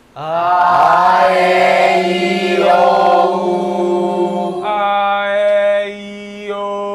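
A group of voices singing a vocal warm-up in unison. One long held note slides up at the start, and about four and a half seconds in it gives way to a second, quieter held note.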